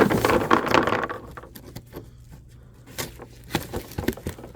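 Box contents being handled: a second of loud rustling, then scattered light clicks and knocks as items are moved.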